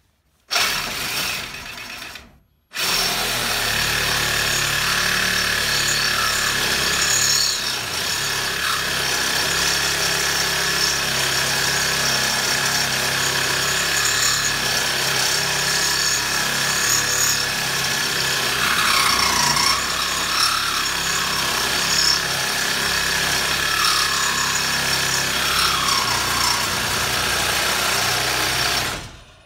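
Reciprocating saw cutting through a galvanized steel square-tube trailer tongue: a short burst, a brief pause, then a long steady run of cutting that stops just before the end.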